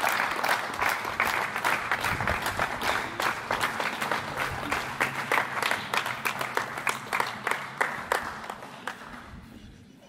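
Applause: many hands clapping at once, thinning and fading away over the last couple of seconds.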